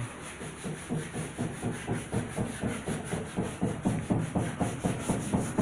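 Car body panel being sanded by hand: rhythmic back-and-forth rubbing strokes, about three a second, growing louder toward the end, over a steady high hiss.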